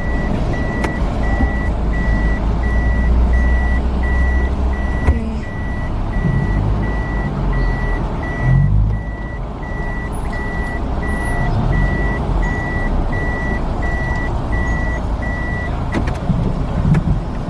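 Vehicle electronic warning beeper sounding a high, even beep about twice a second over low engine and road rumble, stopping near the end.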